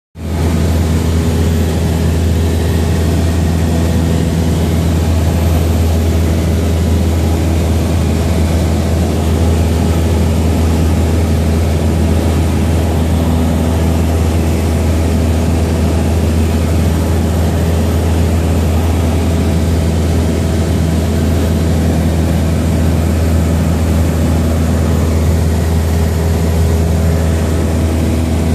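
A propeller aircraft's engine and propeller running steadily: a loud, deep, even drone with several steady higher tones stacked above it.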